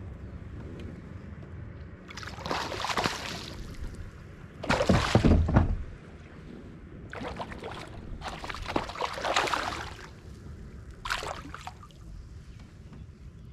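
A hooked smallmouth bass thrashing and splashing at the surface beside a kayak, in about five bursts of splashing, the loudest about five seconds in.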